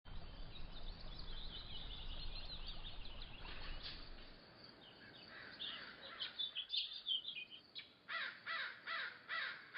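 Birds chirping and calling. A low rumble runs under the first few seconds, and near the end comes a run of about five calls, each sweeping downward, spaced about a third of a second apart.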